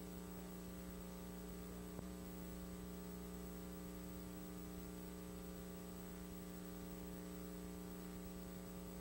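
Steady electrical mains hum with a faint hiss, a buzz of evenly spaced tones that does not change, broken only by a small click about two seconds in.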